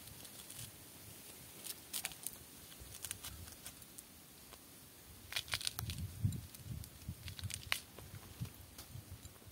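Dry plant sheaths and leaves tearing and crackling as freshly cut wild bamboo shoots are stripped and handled by hand, with scattered sharp clicks and a few soft thumps a little past the middle.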